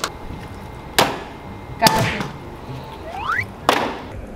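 Plastic water bottle tossed up and knocking against the wall and ledge as it hits and falls: three sharp knocks, the middle one loudest.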